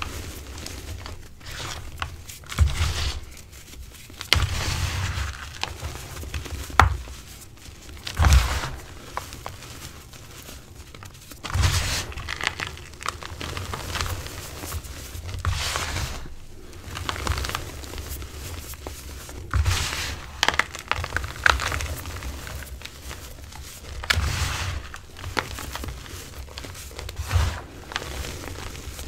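Hands squeezing and crumbling reformed gym chalk and instant-snow powder, giving irregular crunches and crumbles with a burst every second or two.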